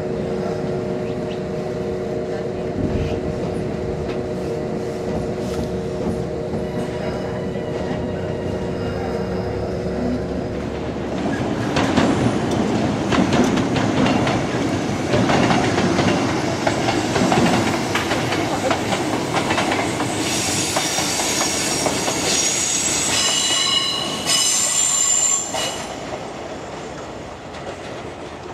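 A steady electric hum from a train standing at a platform, then Kintetsu electric trains running past on the tracks with wheels clattering over rail joints. About twenty seconds in, high-pitched wheel squeal sets in for several seconds before the noise fades near the end.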